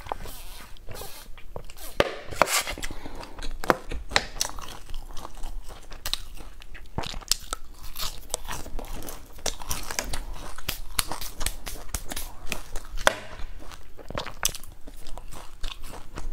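Close-miked crunching, biting and chewing of crisp, flaky round pastry, with many sharp irregular crackles.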